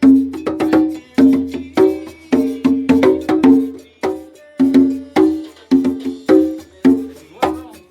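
Instrumental band music in a bouncy rhythm: short, sharp struck notes, about two to three a second, each ringing briefly over a steady bass, with no singing.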